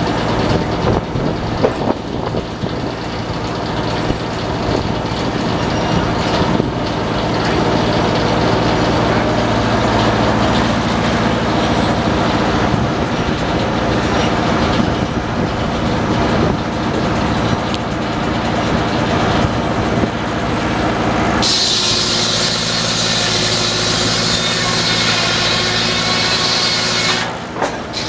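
Antique belt-driven circular sawmill running: the large blade spins free over a steady machinery hum. About three-quarters of the way through, the blade bites into a log and a high whine of sawing starts suddenly, dipping for a moment near the end before going on.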